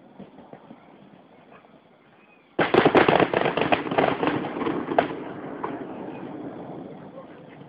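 Fireworks: a sudden loud volley of bursts about two and a half seconds in, with many rapid cracks packed together for a couple of seconds, then dying away gradually.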